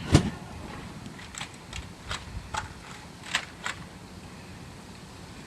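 A series of irregular light knocks and clicks, the loudest right at the start, then about half a dozen lighter ones over the next few seconds, over a low steady background.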